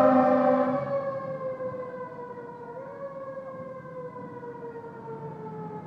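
Fire engine's mechanical siren winding down, its pitch falling slowly and steadily. It fades over the first two seconds as the truck pulls away, then carries on more faintly.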